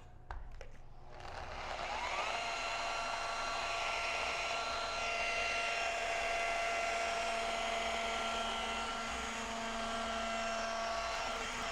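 A few light clicks, then an electric sander's motor spins up about a second in, its whine rising, and runs steadily while sanding glass with a 500-grit abrasive disc to remove scratches.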